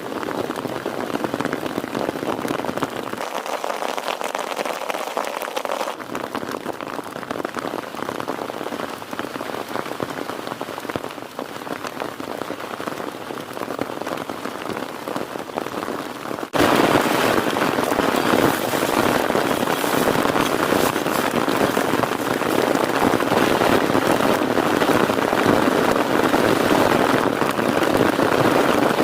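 Heavy rain falling steadily, a dense hiss of many drops. About halfway through it suddenly becomes louder and brighter.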